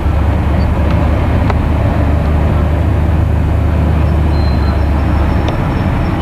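Steady low rumble of a car's engine and road noise heard from inside the cabin while driving, with a few faint clicks.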